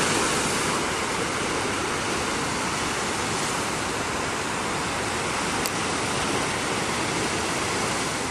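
Ocean surf washing onto a sand beach: a steady, even rush of breaking waves.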